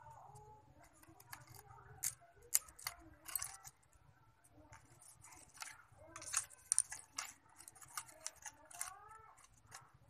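Thin bamboo sticks clicking and knocking against one another as a small stick cage is handled and put together, in irregular clusters of sharp clicks, the loudest about two and a half seconds in and around the middle.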